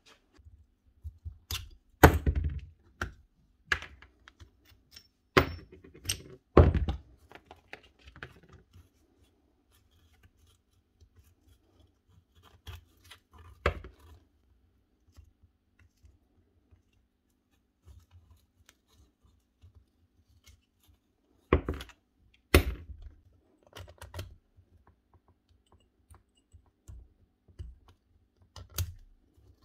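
Metal parts of a Bosch GBH 8-45 D rotary hammer's tool holder being pulled apart and handled by hand: scattered clicks and scrapes, with loud knocks about two seconds in, twice around six to seven seconds, and twice around twenty-two seconds.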